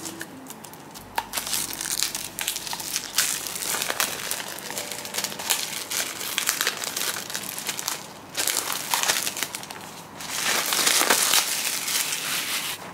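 Thin plastic shrink wrap crinkling and crackling as it is peeled off a paperback comic book by hand. It is loudest near the end.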